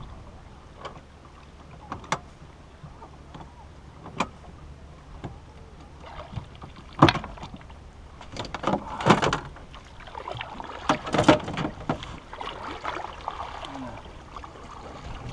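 Canoe paddling: a few sharp knocks against the canoe's hull, then a paddle dipping and splashing through the water in several strokes in the second half.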